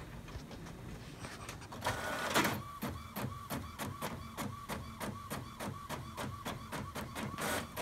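Epson WorkForce WF-3640 inkjet printer starting a print job. About two seconds in comes a louder whirr as it takes up the paper, followed by an even, rapid clicking-and-whirring of the print mechanism, about four strokes a second.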